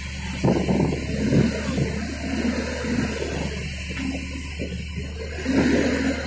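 Diesel engines of an excavator and a log-laden truck running hard as the excavator's bucket pushes the truck through deep mud. A steady low hum, with louder, uneven rumbling from about half a second in.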